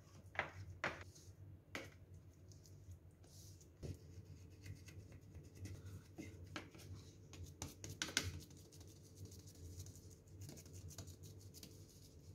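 Faint scraping of a plastic scraper smoothing thick besan burfi mixture across a steel tray, with scattered light clicks and a few soft taps.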